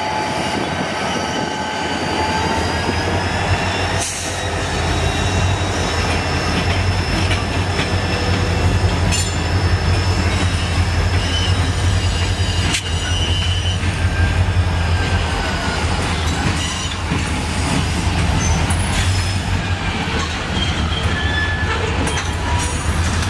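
Norfolk Southern six-axle diesel locomotives moving slowly: a steady low diesel engine drone, with the wheels squealing in several high, wavering tones. A couple of sharp metallic knocks come about 4 and 13 seconds in.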